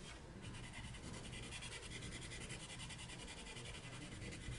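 Black Widow Monarch colored pencil scratching on paper in fast, even back-and-forth strokes as a colour swatch is shaded in. The sound is faint and starts about half a second in.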